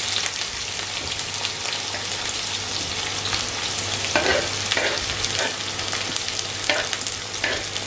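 Sliced onions sizzling steadily in hot oil in a non-stick frying pan, freshly added to the oil with whole spices, with a few brief louder noises in the second half.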